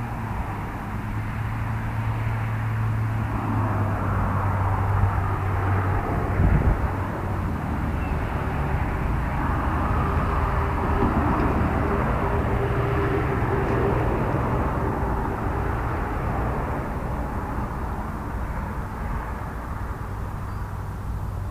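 A distant engine drones steadily, swelling through the middle and easing off near the end, with a brief low thump about six seconds in.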